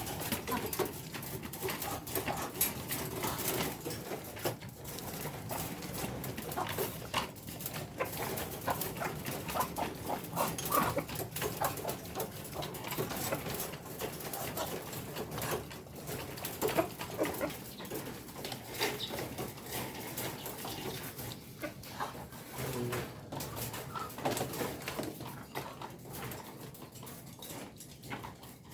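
Village chickens (ayam kampung) clucking and calling softly, with many short clicks and taps throughout.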